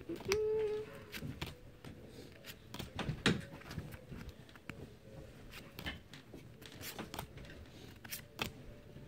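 Pokémon trading cards being flipped through by hand, each card slid from the front of the stack to the back, giving a string of light, irregular clicks and rustles of card stock.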